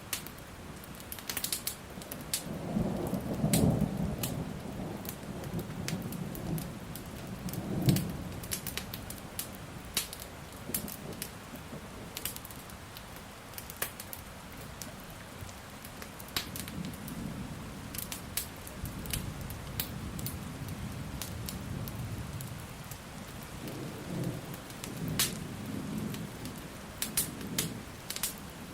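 Steady rain with thunder rumbling several times, swelling about three seconds in and again later, with a sharp loud clap near eight seconds. Frequent sharp crackling pops run through it, from a wood fire.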